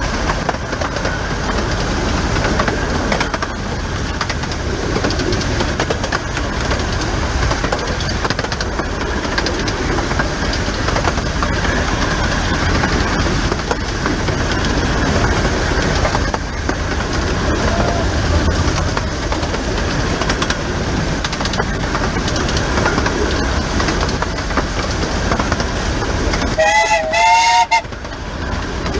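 Close-up running noise of the 15-inch-gauge steam locomotive 'The Bug' on the move: a steady mix of rail clatter and running gear. Near the end a locomotive whistle sounds for about a second, its pitch wavering.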